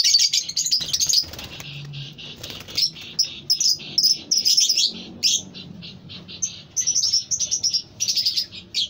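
A flock of caged lovebirds chattering: a dense, shrill run of chirps, loudest in the first second or so, then short chirps coming in quick runs.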